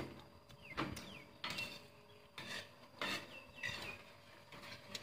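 People eating at a table: scattered small clicks, smacks and rustles of food picked up and chewed by hand. A few short falling chirps sound faintly in the background, about half a second in and again after three seconds.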